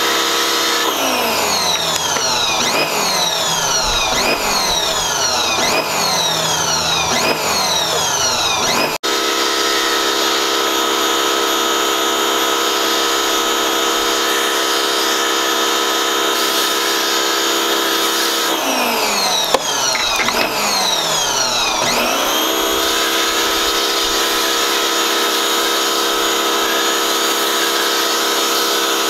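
Electric pressure washer running while spraying foam through a foam cannon, a steady motor-and-pump drone. Its pitch repeatedly sweeps down and snaps back up over the first several seconds and again about two-thirds through, then settles back to a steady tone.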